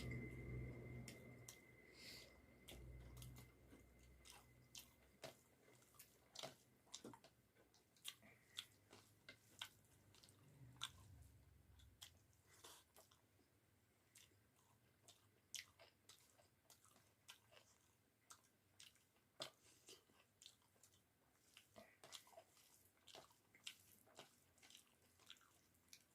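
Faint close-up eating sounds of a person chewing a meal of rice with bamboo-shoot and potato curry: irregular soft mouth clicks and smacks, a few every second.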